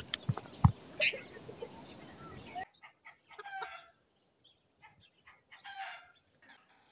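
A few sharp clicks and knocks in the first two seconds, then domestic chickens clucking: two short calls, about halfway through and again near the end.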